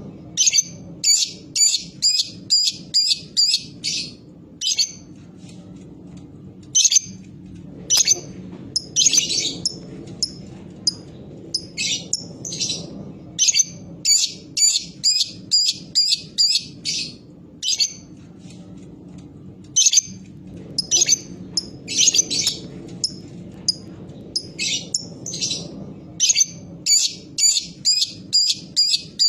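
Lovebird calling in sharp, shrill chirps, repeated in quick runs of several at about two or three a second with short pauses between runs. This is the clipped 'ngetik' calling that bird keepers play as a lure to set other lovebirds singing.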